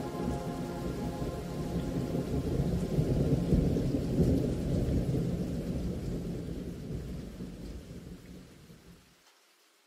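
A thunder-like rumble with a rain-like hiss, swelling to its loudest about four seconds in and then fading away, gone about nine seconds in. It is the tail of the closing soundtrack, not weather.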